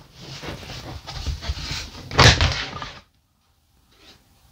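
Lid of a plastic storage tote being pulled free and lifted off, scraping and rattling, with the loudest clatter just after two seconds in. The handling stops about three seconds in.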